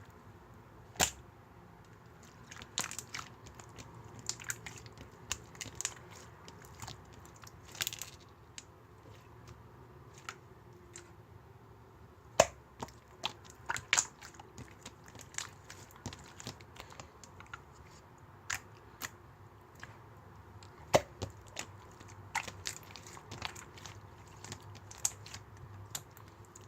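Slime, clear and marbled, being worked by hand: scattered sharp clicks and pops, irregular, with a few much louder pops about a second in, near the middle and about two-thirds through.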